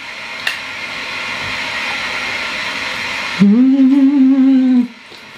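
A woman hums one long, closed-mouth "mmm" of enjoyment while eating, at a steady pitch for about a second and a half, starting just past halfway. Before it, a steady hiss slowly grows louder.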